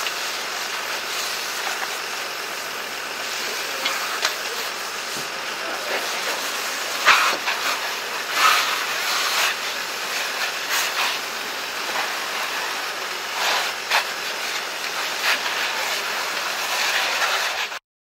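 A burning Peugeot van being doused with a fire hose: a steady hissing rush of water spray and steam on the fire, broken by several sharp pops and cracks from the burning vehicle. The sound cuts off suddenly near the end.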